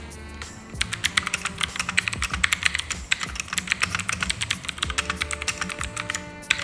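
Fast typing on a Rexus MX3.2 mechanical keyboard with clicky blue switches: a dense, rapid run of sharp clicks, the noisy sound typical of blue switches. The clicks start after a short lull near the start.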